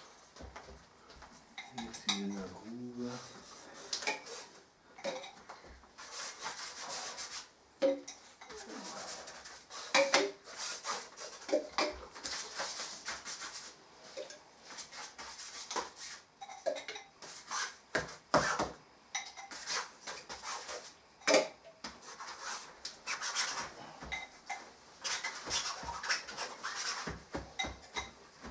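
Brushes scraping and a rag rubbing over paper laid on the floor, broken by many short clicks and knocks of paint pots and tools being handled.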